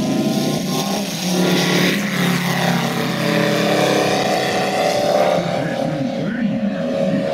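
Moki 250 five-cylinder radial engine of a large-scale RC Fw 190 warbird running at takeoff power through the ground roll and into the climb, its sound turning duller near the end as the plane climbs away.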